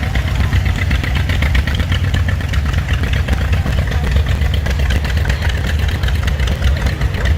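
A large engine idling steadily with a low, even rumble.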